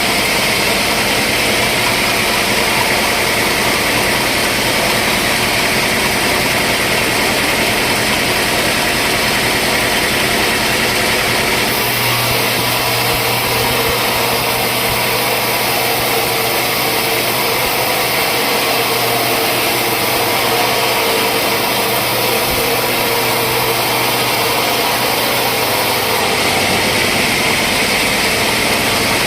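Sawmill machinery running steadily with a loud, even machine noise. A low hum comes in about twelve seconds in and fades near the end.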